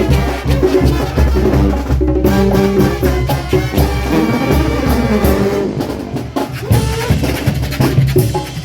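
Mexican banda (brass band) playing a merengue, with horns and drums and percussion keeping the beat; the deep bass drops out a little over five seconds in.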